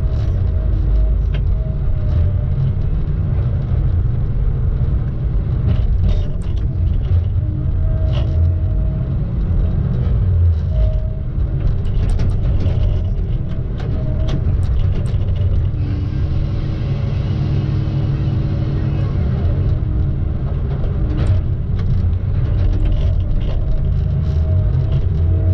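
Log loader's diesel engine running under load, its pitch stepping up and down as the hydraulics work the boom and grapple, with scattered knocks and clunks of the grapple and logs.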